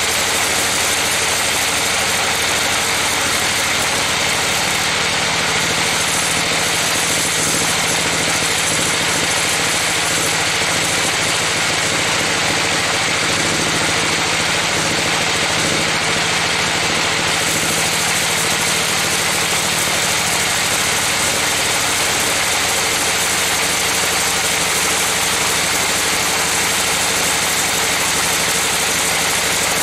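Band sawmill running steadily, its blade cutting lengthwise through a trembesi (rain tree) log. The noise is loud and even, with no pauses.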